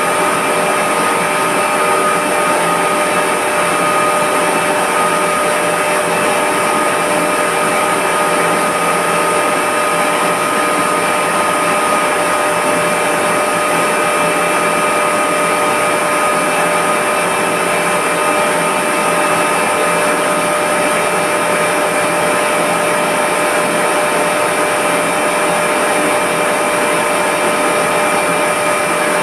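Reverse-osmosis plant's large electric motor and multistage high-pressure pump running steadily: a loud, even whine made of several steady tones over a constant rushing noise.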